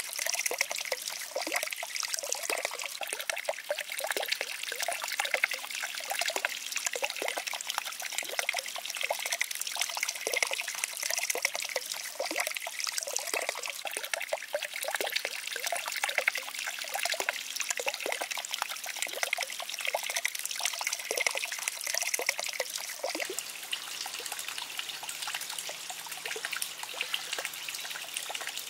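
Water trickling steadily over stones along a small concrete channel into a shallow pond, a continuous stream of small splashes that eases off a little in the last few seconds.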